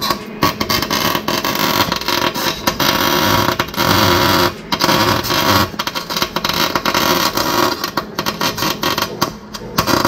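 Electric arc welding: the arc crackling as the spider gears of a differential are welded together to lock it, broken by several short pauses.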